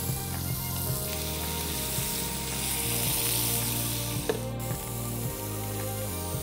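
Sea scallops searing in hot oil in a stainless steel frying pan with curry leaves and garlic, sizzling steadily, with scattered small clicks. Background music with sustained low notes plays underneath.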